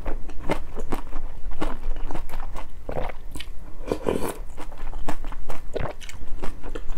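Close-up mouth sounds of eating malatang: crunchy chewing of bean sprouts and noodles, with a couple of slurps from a spoon about three and four seconds in.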